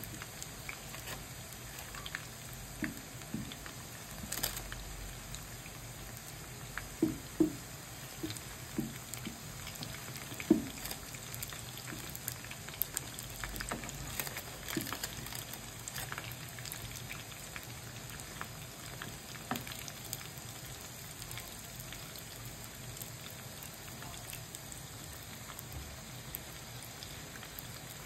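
Hot oil sizzling and crackling steadily as beef pastels deep-fry in a pan. A few louder soft knocks come between about 7 and 11 seconds in, as tongs turn the pastels.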